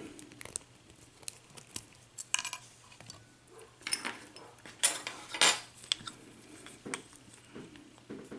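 Small metal parts of a Euro lock cylinder clinking and tapping as it is taken apart, with a scatter of sharp metallic clinks; the loudest come about two and a half seconds in and again around five seconds in.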